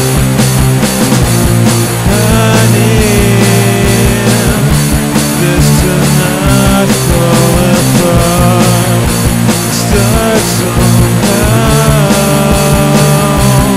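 Rock band playing a loud, dense passage with a steady beat.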